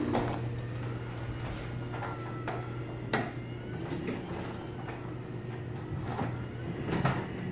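Garage door opener running, its motor giving a steady hum as it drives the door along its tracks, with a few clicks and creaks from the moving door, the sharpest about three seconds in.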